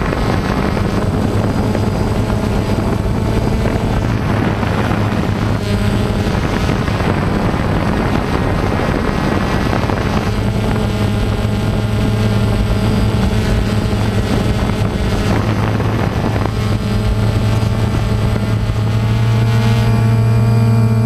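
DJI Phantom quadcopter's four electric motors and propellers running with a steady buzzing whine, heard close up from the camera mounted on the drone, over a rush of air. The pitch shifts slightly a few times.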